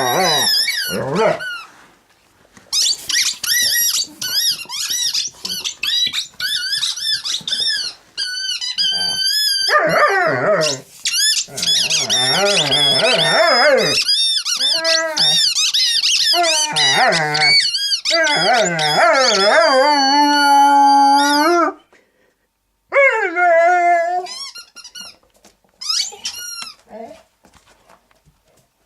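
Dog's squeaky toy squeaking over and over as the dog chews and squeezes it, mixed with the dog's own growling and grumbling sounds. The squeaking runs almost without a break, stops about 22 seconds in, then comes in a few short squeaks near the end.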